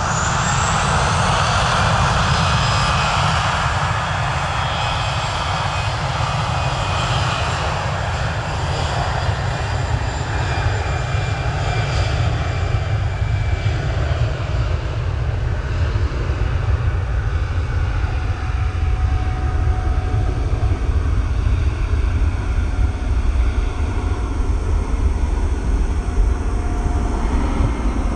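Airbus A320-214's CFM56-5B turbofan engines at takeoff power during the takeoff roll. High whining tones fall slowly in pitch as the jet passes and moves away, over a deep, steady jet rumble.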